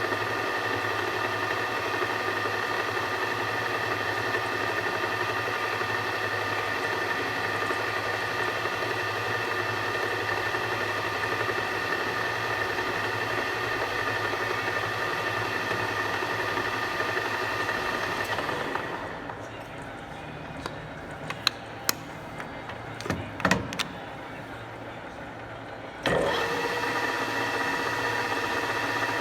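Enshu VF2 milling machine running with a steady whine made of several fixed tones. It winds down about two-thirds of the way through, and a few sharp clicks and knocks come in the quieter pause. Near the end it starts up again abruptly at the same steady pitch.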